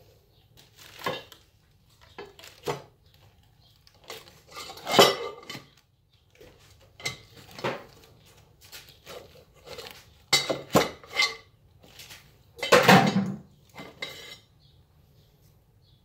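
Steel garage door opener rail sections clanking and knocking against each other as they are handled and set down on the floor. The clanks are irregular, about a dozen of them, and the loudest come about five and thirteen seconds in.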